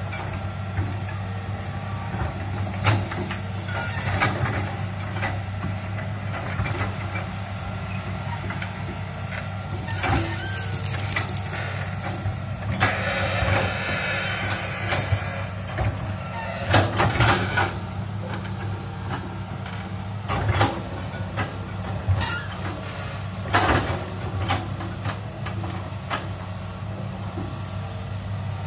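Tracked hydraulic excavator's diesel engine running steadily as it digs a ditch, with scattered metallic clanks and knocks from the bucket and arm. About halfway through there are a few seconds of rushing noise.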